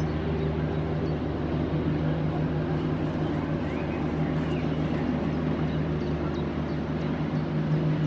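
An engine running steadily at one even pitch.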